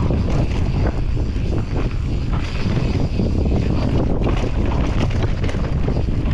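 Wind buffeting the microphone on a fast mountain-bike descent, over a steady low rumble of knobby tyres on a dirt trail and short rattles and knocks from the bike over bumps.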